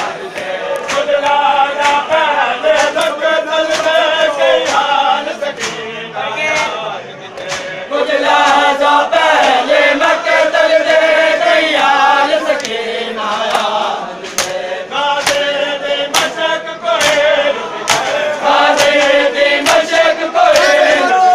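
Group of men chanting a noha together in a mourning procession, with sharp slaps of hands striking bare chests (matam) at regular intervals.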